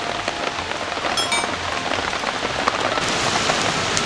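Steady rain pattering on surfaces, a constant hiss full of small drop ticks, getting a little louder and brighter about three seconds in.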